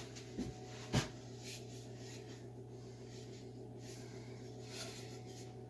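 Two sharp knocks on the axe as it is struck to seat the Michigan-pattern head on its new wooden handle: a small one, then a louder one about a second in. The sound of the knock is how the head's fit on the handle is judged. Then only faint rubbing and breathing.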